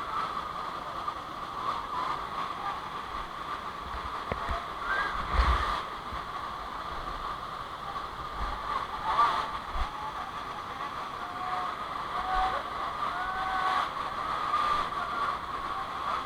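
Water rushing steadily, with a constant high-pitched drone and a few short chirps over it, and a low thump about five seconds in.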